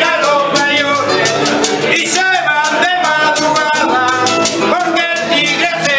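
Vallenato music on acoustic guitars, with a man singing over a steady strummed beat.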